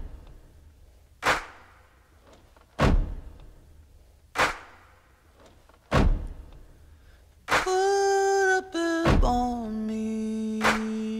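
Background music: slow, heavy drum hits with a long echo, about one every second and a half, joined about seven and a half seconds in by long held pitched notes.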